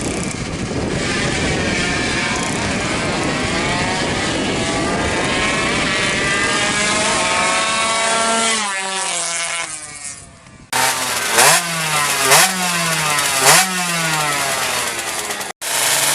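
Two-stroke underbone drag bike engine running hard for several seconds, its pitch sliding down as it backs off and fades. After that it idles with three quick throttle blips, each a sharp rise and fall in pitch.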